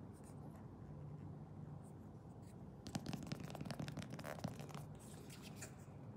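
Hands handling cardboard and plastic packaging: scratchy rustling with small clicks, loudest for about two seconds starting around three seconds in, then a few lighter scrapes.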